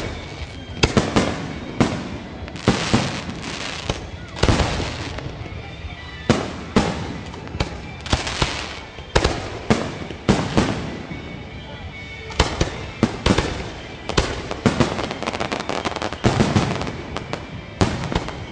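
Fireworks display: aerial shells bursting in quick succession, sharp bangs each followed by a short crackling tail.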